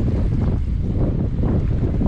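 Strong wind buffeting the microphone in a loud, fluttering rumble, with small waves lapping against the kayak's hull.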